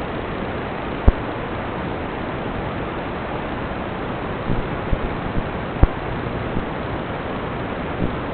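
Steady, even static-like hiss with no motor whine in it. Two sharp clicks, about a second in and near six seconds, and a few softer knocks in between.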